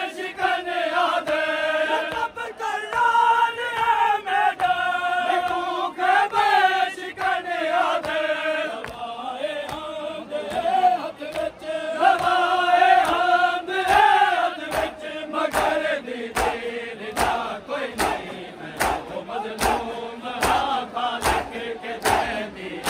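Men chanting a noha, a Shia lament, in unison without instruments. About two-thirds through, a crowd of mourners joins with matam: bare-handed chest-beating slaps, about three every two seconds, under the chanting.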